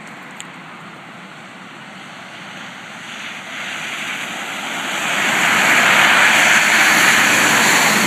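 A vehicle driving past on a snow-covered highway, its tyre hiss on the snowy road swelling from about three seconds in to its loudest near the end as it passes close by.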